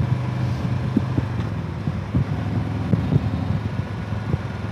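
Harley-Davidson Road Glide Ultra's Milwaukee-Eight V-twin running while riding, with wind buffeting the microphone. The engine's low drone eases off about a second and a half in.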